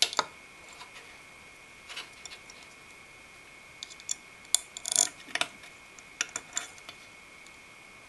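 Clicks and light taps of a CPU-cooler back plate being handled and seated against the back of a motherboard as its mounting screws are fitted, in scattered bursts with the busiest run about halfway through. A faint steady high whine sits underneath.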